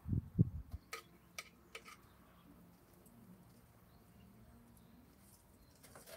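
Handling noise from gardening work in a wheelbarrow: a few low thumps, then three light, sharp clicks about a second apart, and a quiet stretch with one more click near the end.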